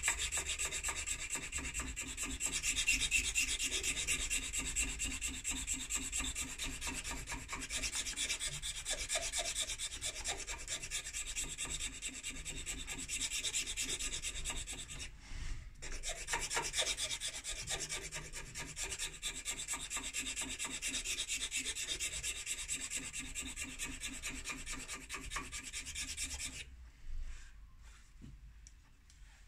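Flat hand file rasping back and forth over a pipe stem held in a lathe chuck, which is turned by hand between strokes. The filing breaks off briefly about halfway and stops about three seconds before the end.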